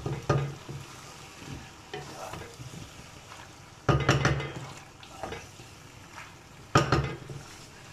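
A spatula stirring penne through a thick cheese sauce in a non-stick frying pan, with several scraping strokes against the pan, the loudest about four seconds in and near seven seconds, over a soft sizzle.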